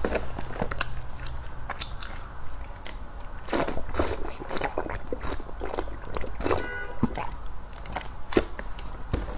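Close-miked mouth sounds of eating and drinking: chewing, then gulps from a large plastic bottle, heard as a string of short clicks, with a brief squeak about six and a half seconds in.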